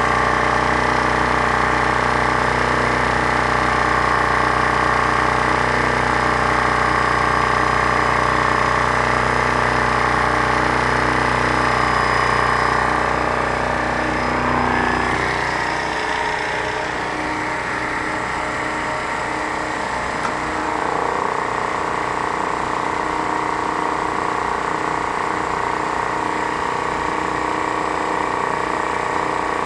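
Kohler 5E 5 kW marine gas generator running steadily. About halfway through, the deep even hum drops away and a rougher, higher running sound carries on.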